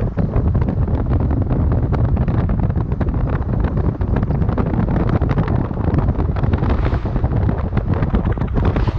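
Wind buffeting the microphone: a steady, loud low rumble with dense crackling.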